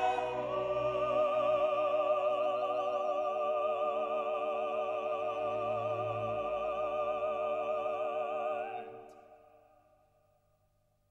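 Classical vocal music: singers with orchestra hold a long chord with wavering vibrato, and it fades out about nine seconds in.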